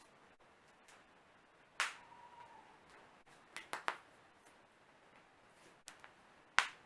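Joints cracking: a sharp pop a little under two seconds in, a quick run of three pops in the middle, then two small clicks and a final loud pop near the end.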